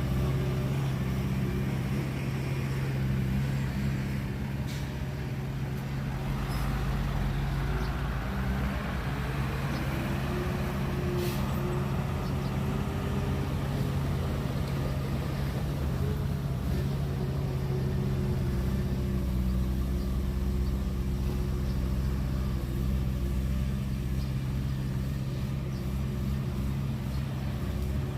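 Heavy diesel engine of earthmoving machinery running steadily, with a faint whine in the middle and a few sharp clicks.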